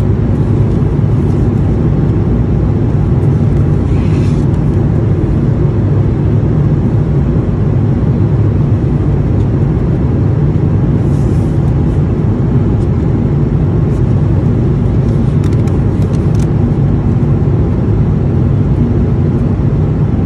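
Steady low drone of an Airbus A220-300 cabin in flight: engine and airflow noise, unchanging throughout.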